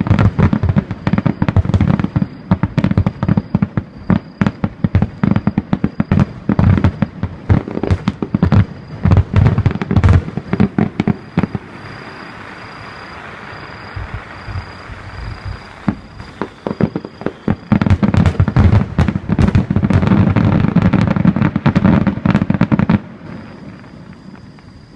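Fireworks display: a rapid run of shell bursts and bangs, then a softer crackling hiss for several seconds midway, then another dense run of bangs that stops suddenly near the end.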